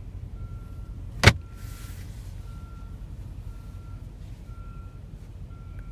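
Car's interior warning chime beeping at one pitch, about once a second. About a second in, a sharp click of the glove box latch.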